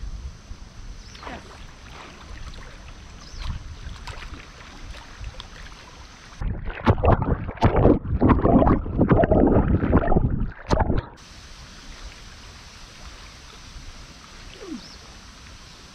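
Water splashing and sloshing as someone moves through deep water, loud and choppy for about four seconds in the middle, with a low running-water noise around it.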